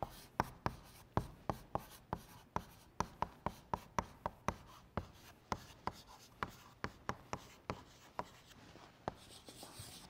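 Chalk writing on a blackboard: a quick run of sharp taps and short scrapes, about three a second, as letters are written, stopping near the end.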